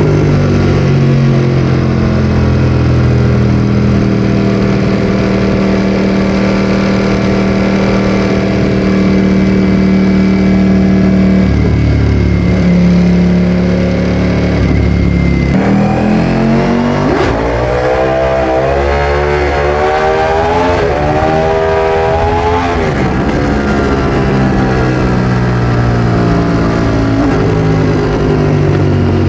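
Ducati Streetfighter V4S's 1103 cc Desmosedici Stradale V4 engine with an Akrapovic exhaust, under way. The note holds steady for about eleven seconds, then climbs sharply past the middle with the revs rising and dropping in quick steps, and falls away as the throttle closes near the end.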